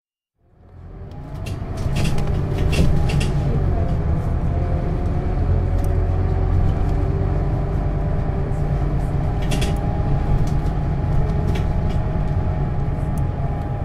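Scania CK250UB city bus's engine, a 9-litre inline five-cylinder diesel, running steadily as heard from inside the bus, a deep rumble with a wavering whine above it. It fades in over the first two seconds, and a few sharp clicks or rattles come through about two to three seconds in and again near ten seconds.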